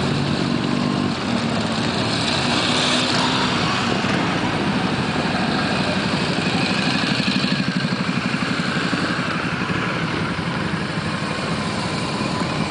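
Motorcycles riding past one after another in a group ride, their engines running steadily. One engine's pulsing note stands out about halfway through.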